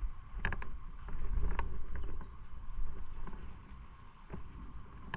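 Wind rumbling on the microphone by calm seawater, with a few short high clicks or chirps.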